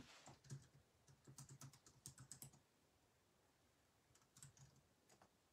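Faint keyboard typing: quick runs of small key clicks, a pause of under two seconds, then a few more clicks near the end.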